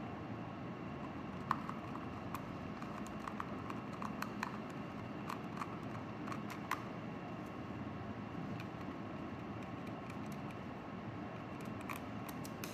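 Scattered small clicks and taps of a screwdriver and plastic casing being handled while a Garmin GPSMAP 64st handheld GPS is taken apart, over a steady background hiss.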